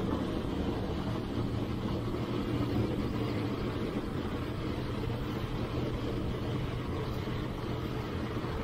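Passenger train running along the track, a steady low rumble.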